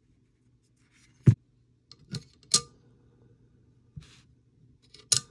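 Metal airsoft gearbox parts clicking and knocking as gears and bearings are handled and set into the metal gearbox shell: about half a dozen sharp, separate clacks, the loudest about a second in and just before the end, some with a brief metallic ring. A faint steady low hum lies underneath.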